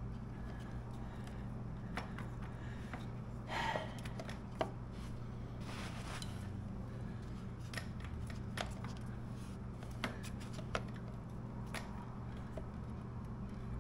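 Scattered light metallic clicks and clinks as a 17-tooth motorcycle front sprocket and its slack drive chain are wiggled by hand onto the shaft, with a short scraping rasp about four seconds in. A steady low hum runs underneath.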